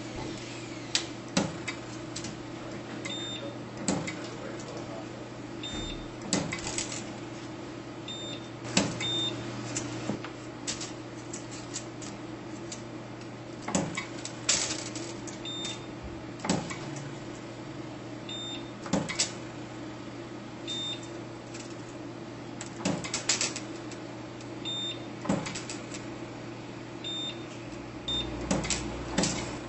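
Sunstone CD630DPM2 capacitor-discharge spot welder firing through a hand-held PASP-HP copper-electrode probe at 380 Ws, spot welding corrugated aluminum sheet to a flat aluminum base sheet. Each weld gives a sharp snap, one every second or two and sometimes two close together, over a steady low hum, with short high beeps between welds.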